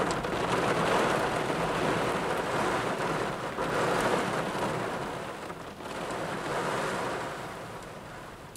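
Heavy, wind-driven rain falling on a parked car, heard from inside the cabin. It surges and eases in gusts and grows quieter toward the end.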